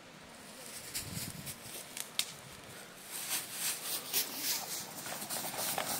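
Footsteps crunching and rustling through dry grass: irregular crackles that grow busier from about three seconds in.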